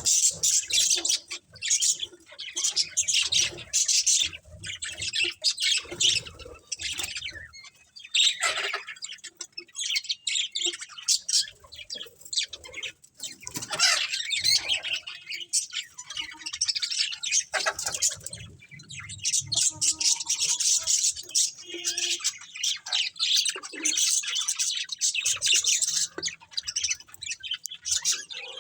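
A colony of budgerigars chirping and chattering continuously, many birds at once, with sharper squawks mixed in.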